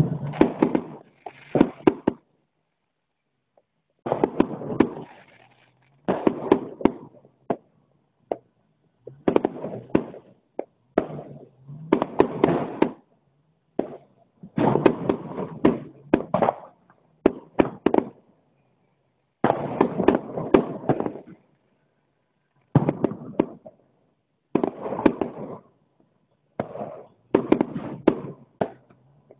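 Aerial fireworks shells bursting one after another, about a dozen times, roughly every two seconds; each burst is a short cluster of sharp bangs and crackles lasting a second or two.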